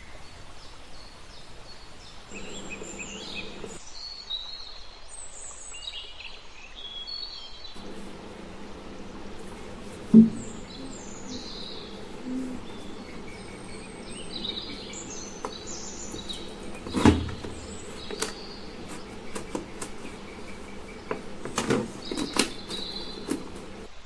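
Birds chirping throughout, with a low steady hum from about a third of the way in. A few sharp clicks and knocks of a plastic bottle being handled; the loudest comes about ten seconds in.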